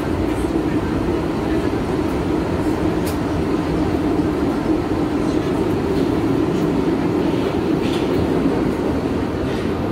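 New York City Subway B train running at speed, heard from inside the car: a steady, loud running noise of wheels on rails, with a few faint clicks.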